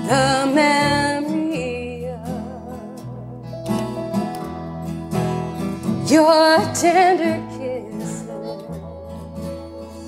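Acoustic country band playing an instrumental passage: a fiddle melody with vibrato and sliding notes over strummed acoustic guitars and a steady bass line.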